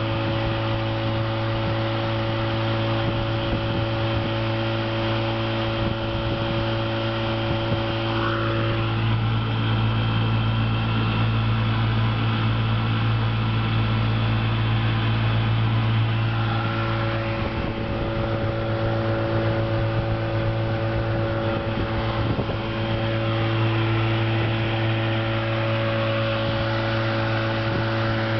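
1966 Chrysler-built 35 hp Sea King two-stroke outboard motor running steadily under way, a constant engine drone whose tone shifts slightly for a stretch in the middle, with the wake water rushing behind the boat.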